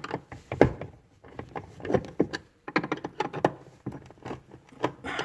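Irregular knocks and clicks of a screwdriver and hard plastic parts being handled as a water-filter head mounting is unscrewed from the back of a sink cupboard. The sharpest knock comes a little under a second in.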